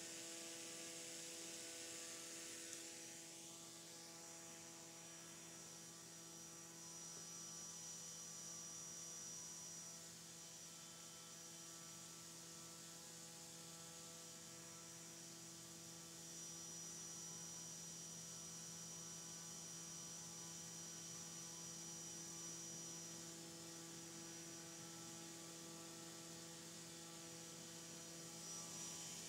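Drone-scale propeller on a test stand, driven by a 14-pole brushless motor at a steady 5,000 RPM or so: a faint, steady hum with a thin high whine above it.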